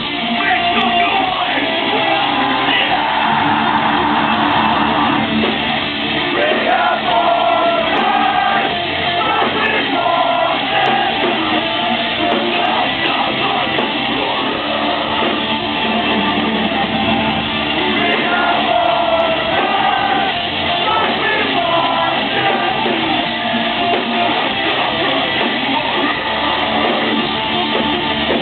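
Live heavy metal band playing, with distorted electric guitars, bass and drums under shouted, screamed vocals, recorded loud and thin, with the top end cut off.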